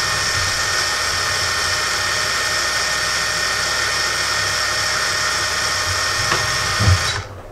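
Small electric motor on a power supply spinning a 3D-printed spur gear on its shaft: a steady high whine that cuts off near the end, with a low thump just before it stops. The gear is held by a single set screw, so it wobbles and does not run true.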